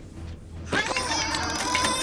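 Cartoon mechanical sound effects of a robot set to work cooking: a busy run of rapid whirring and clicking that starts about three-quarters of a second in, over background music.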